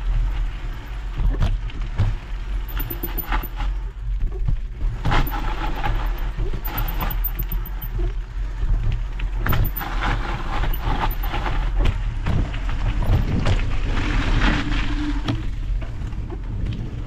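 Mountain bike rolling fast down a dirt trail: tyres on dirt and the bike rattling and knocking over bumps, with many short clicks, over a steady low rumble of wind on the microphone.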